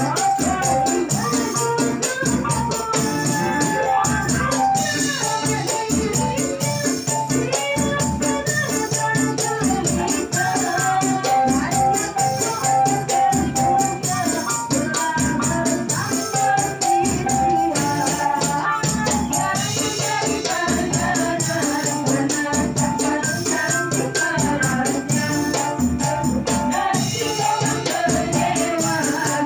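Live qasidah group performing sholawat: women singing in unison into microphones over an electric keyboard and jingling frame-drum percussion, with a steady beat.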